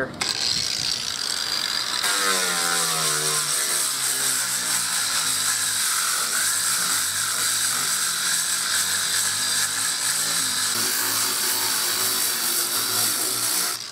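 Corded angle grinder with a sanding disc grinding a fiberglass hull down to raw glass: a loud whine with a high abrasive hiss. Its motor pitch drops as the disc bites into the surface about two seconds in, and it cuts off suddenly near the end.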